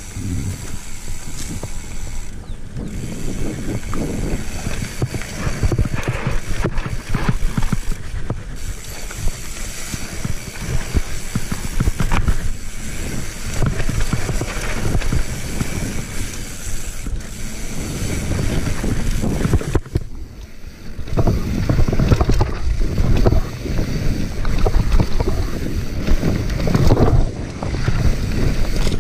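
Mountain bike riding downhill on a dry dirt trail: tyres rolling over dirt and rocks while the chain, suspension and frame rattle and clatter, with wind on the microphone. It goes briefly quieter about twenty seconds in, then picks up again.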